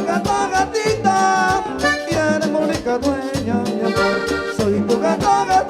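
Live Panamanian música típica, instrumental: an accordion plays the melody over a steady drum beat and pulsing bass.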